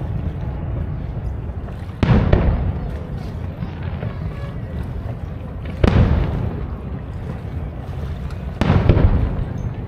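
Aerial fireworks shells bursting: three booms, about two, six and nine seconds in, each dying away over a second or so.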